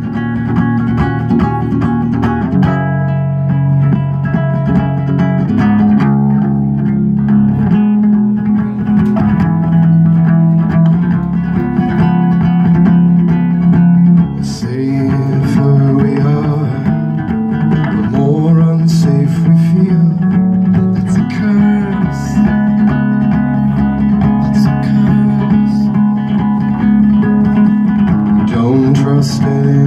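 Ukulele strummed solo through an instrumental passage of a slow song, its chords changing every couple of seconds.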